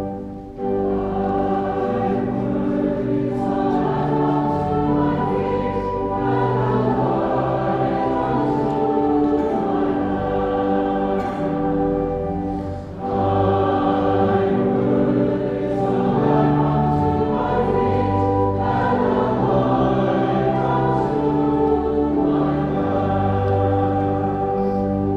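A choir singing a hymn in long held chords, with a short break about thirteen seconds in.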